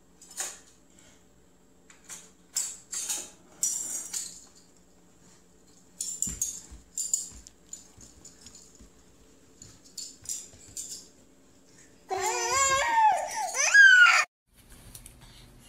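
Toddlers giggling in short, breathy bursts, then one toddler crying out loudly for about two seconds near the end, in a wavering voice that cuts off abruptly.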